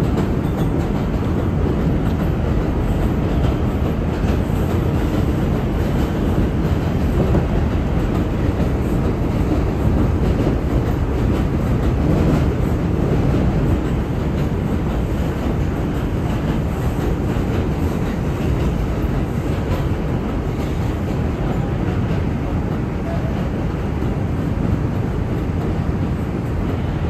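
Inside an R142 subway car running on elevated track: steady noise of the car and its wheels on the rails, a little louder for a few seconds in the middle.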